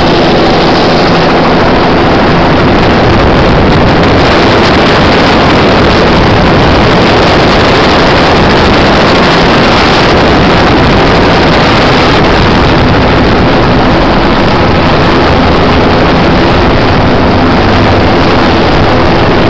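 Helicopter engine and rotor noise from on board, loud and steady, as the helicopter comes in low over the field to land.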